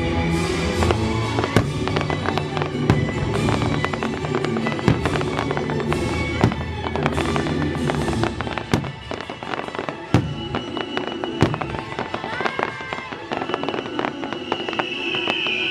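Fireworks bursting and crackling in many sharp, irregular bangs over orchestral music. A high steady whistle comes in near the end.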